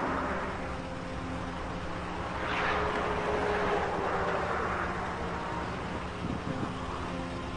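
Road and engine noise heard from inside a moving car on a highway: a steady rumble, with a rushing swell about three seconds in as another vehicle passes.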